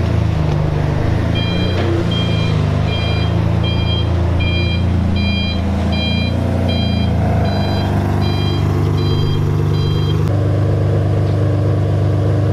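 Ferrari Enzo's V12 running at a low, steady idle as the car creeps forward, its note shifting a couple of times. Over it, a high electronic warning beep repeats evenly, a bit faster than once a second, and stops near the end.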